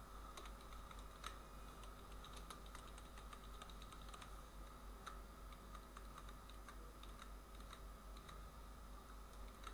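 Faint computer keyboard typing, irregular key clicks, over a steady low electrical hum.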